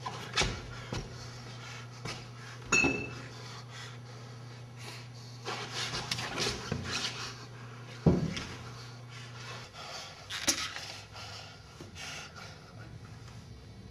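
Scattered knocks, clinks and handling noises of objects being moved about, over a low steady hum. There is a short ringing clink near the start and the loudest thump about eight seconds in.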